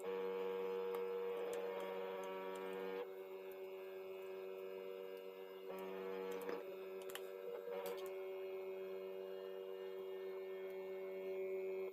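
Background music: sustained held tones that change chord every few seconds, then cut off suddenly at the end.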